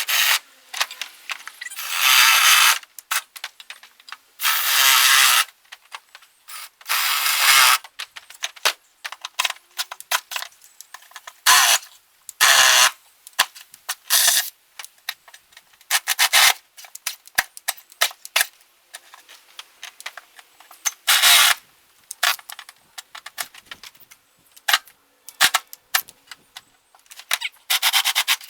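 Power drill boring bolt holes through metal, running in repeated bursts of about a second or less, with small clicks and knocks between the bursts.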